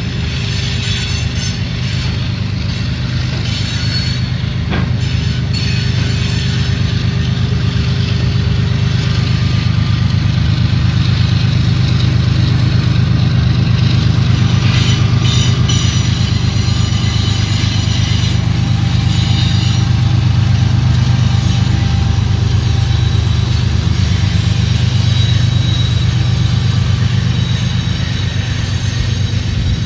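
Diesel freight train running on the tracks: a steady low rumble throughout.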